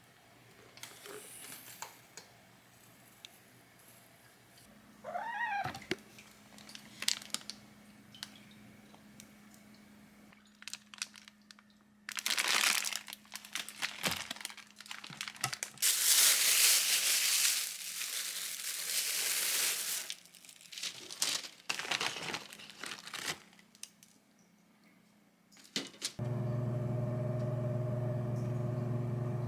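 Crinkling and rustling, loudest from about twelve to twenty seconds in, with scattered clicks, and a cat meowing once about five seconds in. A steady low hum starts near the end.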